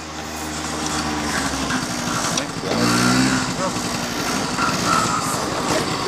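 Small motor scooter engine running as the scooter rides up and approaches, growing louder over the first few seconds, with its note loudest about three seconds in.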